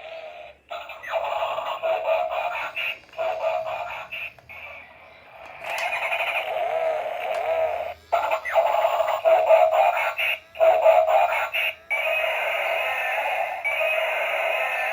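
A toy's small speaker playing a tinny electronic tune with synthetic singing, breaking off briefly several times.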